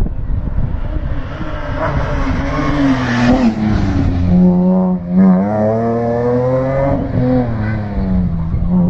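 Rally car engine revving hard as it accelerates past, its pitch climbing and dropping through the gears, with a short break at a gear change about halfway through.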